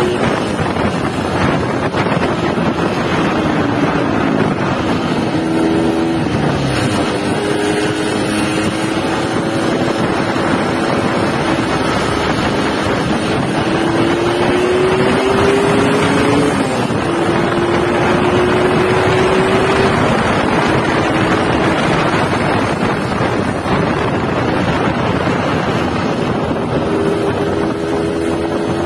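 Yamaha RX-King 2007's two-stroke single-cylinder engine under way, fitted with its stock catalytic muffler. Its pitch falls and rises with throttle and gear changes. Wind buffets the microphone.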